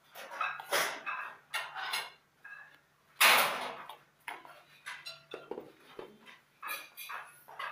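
Serving spoon scraping and clinking against a ceramic serving bowl as rice is dished out, with one louder clatter about three seconds in.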